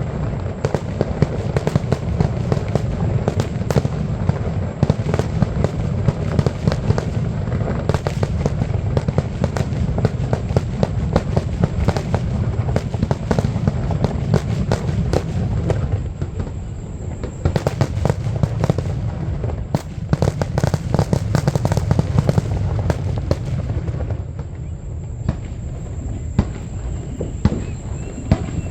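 Aerial fireworks grand finale: a dense, rapid barrage of booms and crackling bursts over a continuous low rumble, thinning out near the end.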